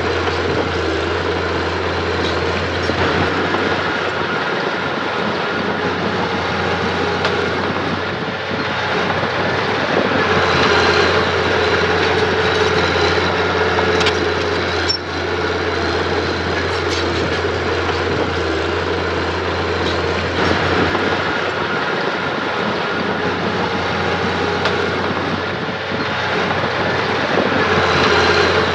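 Diesel engine of earth-moving machinery running steadily under load, with scattered metallic clanks and rattles.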